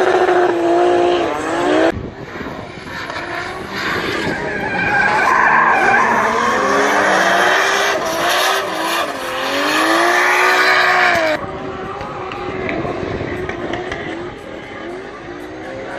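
Drift cars sliding under power: engines revving hard, their pitch rising and falling with the throttle, over the hiss and squeal of spinning tyres. The sound changes abruptly about two seconds in and again around eleven seconds.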